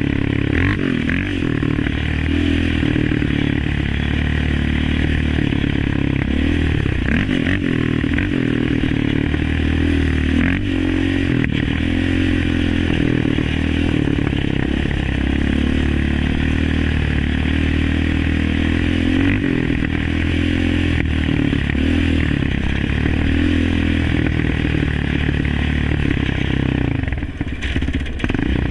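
Yamaha Raptor 700 ATV's single-cylinder four-stroke engine running through an Alba Racing aftermarket exhaust, its revs rising and falling with the throttle while riding, with a brief let-off near the end.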